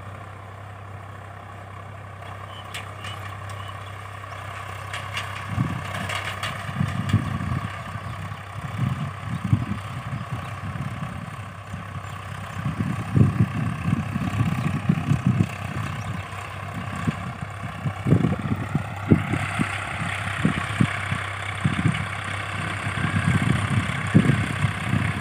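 Tractor engine running steadily while ploughing, with irregular low thumps from about five seconds in and a brighter hiss joining about three-quarters of the way through.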